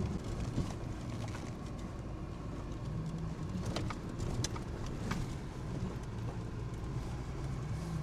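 Car interior while driving slowly on a snowy forest road: a steady low engine and tyre rumble, with the engine note rising and falling slightly. A few sharp knocks come about four to five seconds in.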